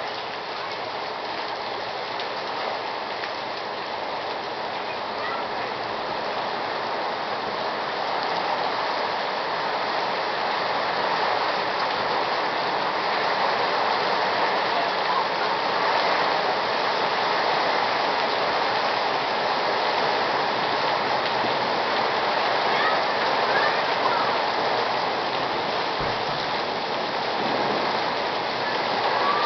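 Torrential rain pouring down in a steady, dense hiss that grows a little heavier about a third of the way in.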